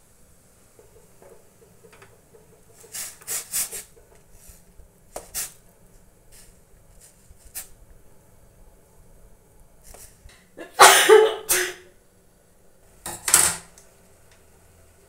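A spoon stirring noodles in a stainless steel pot, scraping and knocking against the pot in a few short bursts, the loudest lasting about a second near the eleven-second mark.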